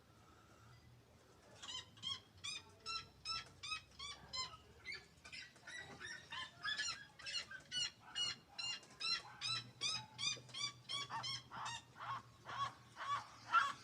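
Seriemas calling: a long series of loud yelping notes, about three to four a second, starting about two seconds in and growing louder toward the end.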